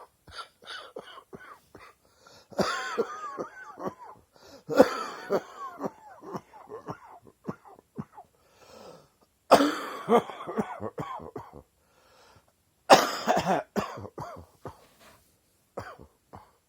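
A chesty morning coughing fit: a string of short coughs and throat clearing, breaking into four longer, louder bouts of coughing.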